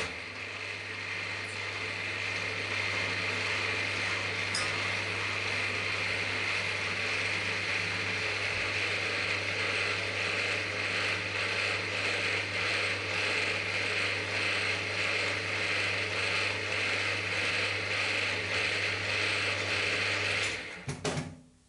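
Geared head of a Cormak ZX 7045 mill-drill running steadily with a gear whine and low motor hum, drilling into the end of an aluminium plate. It stops near the end.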